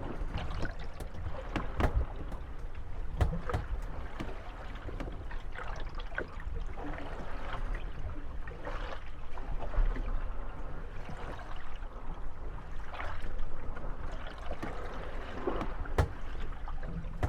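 Moored gondolas rocking in lapping water, their wooden hulls knocking against one another with several irregular knocks and creaking now and then, over a steady wash of small waves.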